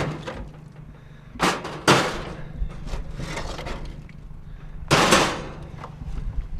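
Scrap metal being handled: two sharp knocks about a second and a half in, then a short scraping clatter about five seconds in.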